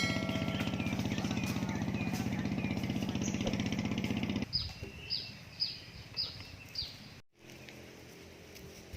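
A small engine running steadily, cutting off abruptly about four and a half seconds in. A bird then calls five times in quick, falling chirps.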